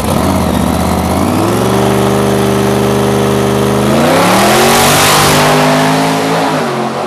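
Custom drag-racing hot rod's engine revved at the start line, rising and held at a steady high rev, then climbing higher about four seconds in as the car launches, with a loud rush of noise for a couple of seconds. The engine pitch drops near the end.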